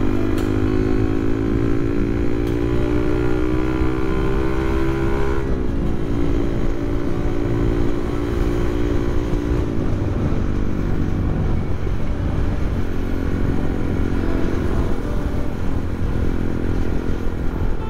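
Motorcycle engine accelerating, its pitch rising, then dropping at an upshift about five and a half seconds in and holding steady before fading into a steady rumble of wind and road noise while riding.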